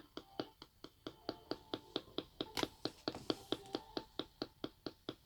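Nordmende Mambino transistor radio playing between stations: an even run of sharp clicks, about six a second, through its speaker, with faint whistling tones and a weak station underneath.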